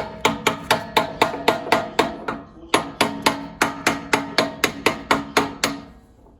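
Hammer tapping repeatedly on a metal V-pulley part, about four quick blows a second, each with a short metallic ring; a brief pause about two and a half seconds in, and the tapping stops near the end. The tapered hub of a two-piece taper V-pulley is being driven lightly onto the engine shaft.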